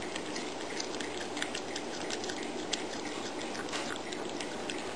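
Cat chewing and gnawing on a piece of raw meat: quick, irregular wet clicks and smacks, several a second, over a steady background hiss.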